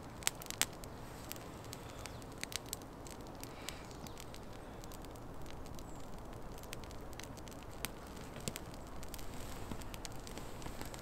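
Small wood fire catching in a pyramid of thin sticks lit from below with a firelighter, crackling with scattered sharp pops, the loudest two within the first second.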